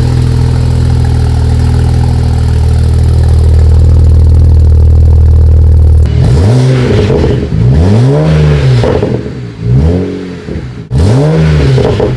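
BMW 335i's twin-turbo N54 inline-six running through a newly installed full aftermarket exhaust: a steady idle for about six seconds, then four quick throttle blips, the pitch rising and falling with each one.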